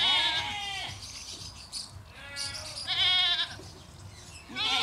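Goats bleating in a pen: three calls in a few seconds, each with a wavering, quavering pitch.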